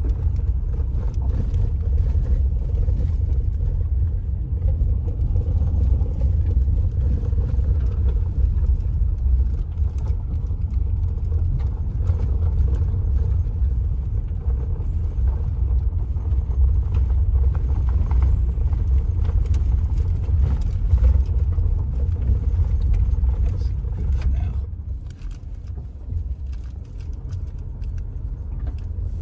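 Steady low rumble of a car driving on a dirt road, heard from inside the cabin, with light rattles over it. The rumble eases off near the end.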